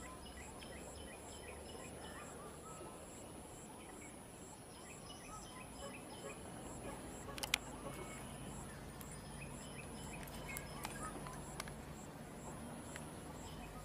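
Faint natural ambience: birds chirping in short calls, over a steady high-pitched insect drone with a faint pulse about twice a second. A single sharp click stands out about seven and a half seconds in.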